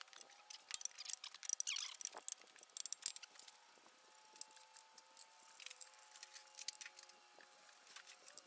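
Irregular light metallic clicks and clinks of hand tools and loose parts being handled on metal, with a cluster of louder clinks in the first two seconds.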